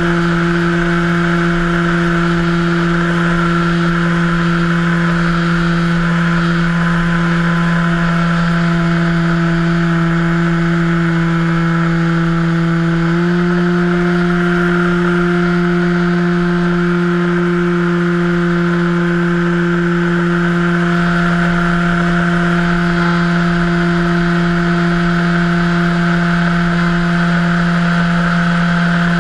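HobbyKing Cessna 182 1.5 m RC floatplane's electric motor and propeller running at steady cruise throttle, a constant whine over rushing air noise, heard from a camera on the airframe. The pitch steps up slightly about halfway through as the throttle is nudged up.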